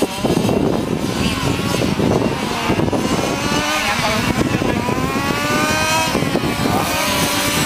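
Engines of several radio-controlled racing cars revving on a track, their overlapping pitches rising and falling as the cars accelerate, brake and pass.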